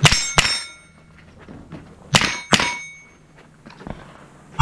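Scoped AR-style semi-automatic rifle firing at steel plates: sharp cracks in pairs about 0.4 s apart, two pairs and then another crack right at the end, with a brief metallic ringing tone trailing the reports.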